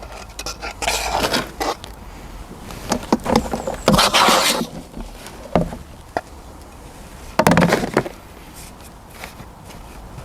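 Potting compost being scooped, tipped in and firmed down by hand around a plant's roots in a pot: a run of short rustling, scraping bursts, the loudest about four seconds in.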